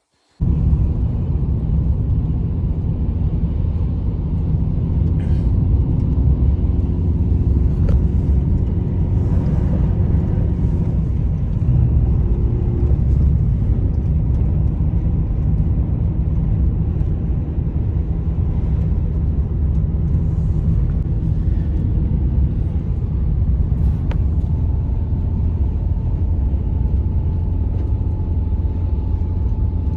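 Strong blizzard wind: a loud, steady low rumble that starts abruptly, with a faint held howl above it.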